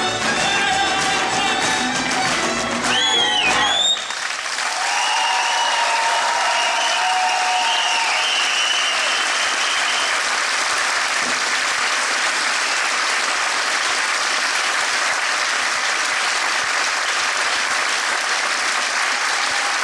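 A folk band with fiddles plays the last bars and breaks off about four seconds in, with a rising-and-falling whoop right at the end. A theatre audience then applauds steadily.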